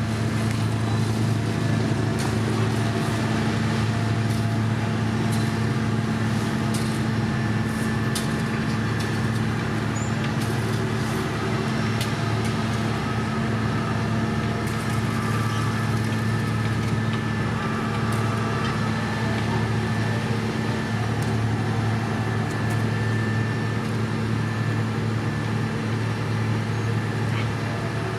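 Diesel engine of a road-construction machine running at a steady speed, with scattered light clicks over it.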